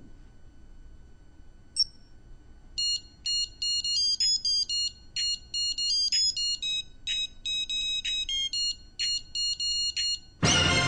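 A digital wristwatch alarm gives a single short beep, then plays a quick melody of high-pitched electronic beeps at changing pitches. A loud electro music track comes in near the end.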